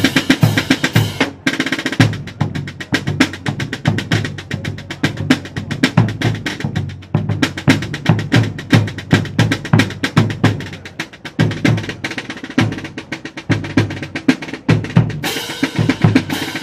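Military marching band's drum line playing a marching cadence: rapid drum strokes over regular deeper drum beats.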